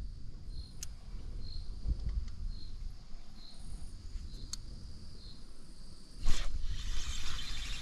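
An insect chirping at a high pitch about once a second, over a low outdoor rumble. About six seconds in, a sudden loud rustling noise breaks in and goes on to the end.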